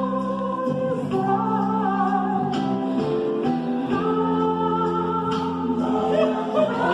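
Group of young male voices singing slow, held notes in close harmony, the chord moving every second or two.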